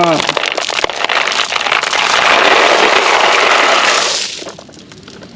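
A mass of glass marbles pouring and clattering out of a toy truck, a dense rattle of many small clicks that dies away about four seconds in.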